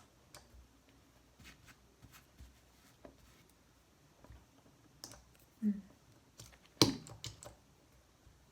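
Scattered light clicks and taps of small objects being handled and set down on a hard surface, with one sharper click about two thirds of the way through.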